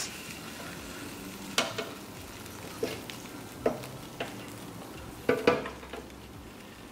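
Tongs clicking and knocking against a hot air fryer basket as a whole roasting chicken is turned over, several light knocks over a steady sizzling hiss from the hot basket.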